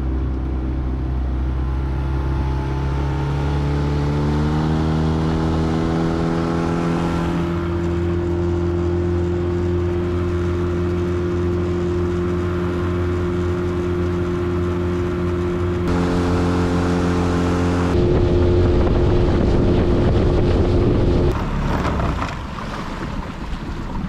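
Small boat's outboard motor running under way, rising in pitch over the first several seconds as it speeds up, then holding steady. Near the end it is throttled back and the engine note gives way to water and wind noise.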